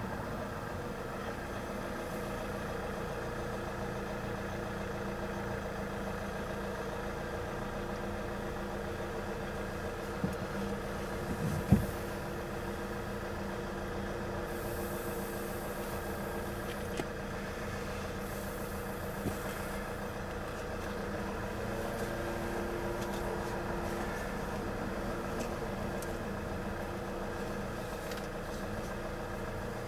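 Vehicle engine idling steadily while traffic waits at the closed level-crossing barriers, with a single sharp knock about twelve seconds in.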